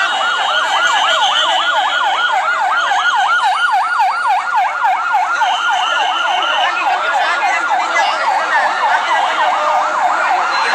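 Emergency-vehicle siren on a fast yelp, its pitch sweeping up and down about four times a second. A steadier, higher tone comes and goes over it.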